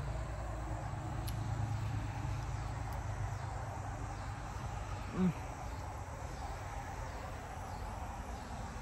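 Steady background chirring of insects outdoors, with a brief hum of a person's voice about five seconds in.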